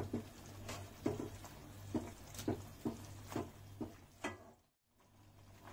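Vegetables for pav bhaji being mashed in a metal kadhai with a perforated hand masher: soft, squelchy knocks each time the masher is pressed into the thick bhaji, about two a second. The strokes stop about four and a half seconds in.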